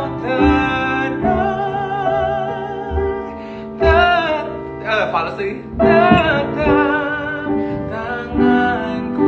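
A man singing a Christian worship song with vibrato over an instrumental backing.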